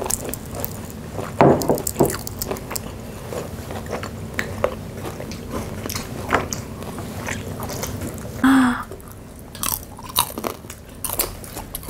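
Close-up chewing and biting of crispy deep-fried chicken gizzards, with many short crunches of the batter. The loudest crunch comes about a second and a half in. A short vocal sound follows about two-thirds of the way through.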